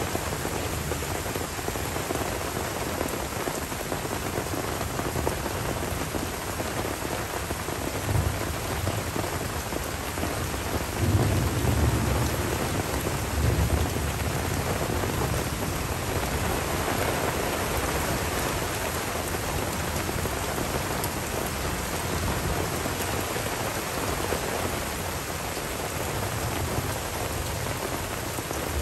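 Steady rain falling on forest leaves and a dirt track during a thunderstorm. A low rumble of thunder rolls in about a third of the way through, is loudest for a few seconds, then fades back under the rain.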